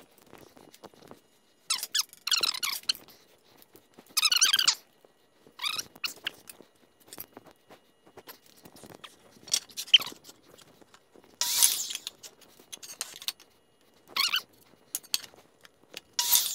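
Handling noises while lumber is measured and moved: a series of about seven short squeaks and scrapes, spread out with quiet gaps between.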